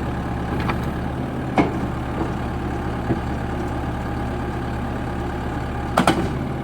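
2001 New Holland backhoe's diesel engine idling steadily, with a few short sharp knocks over it and a double knock near the end.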